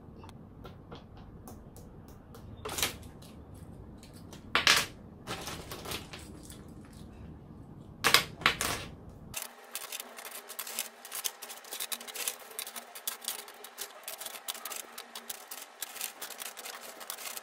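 Small objects being handled: a few short rustles in the first half, then from about nine seconds in a quick run of light clicks and taps.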